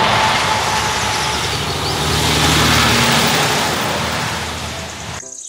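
A semi-trailer truck driving past, its diesel engine and tyres loudest about halfway through. The sound cuts off abruptly near the end.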